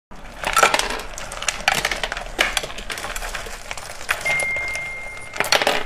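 Ice cubes clinking and rattling in a bowl as wooden skewers of ice jelly are pulled out, in short bursts of clatter. A thin steady high tone sounds for about a second near the end.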